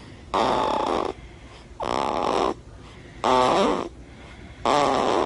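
Loud rhythmic snoring: four snores about a second and a half apart, the last two with a pitch that wavers up and down.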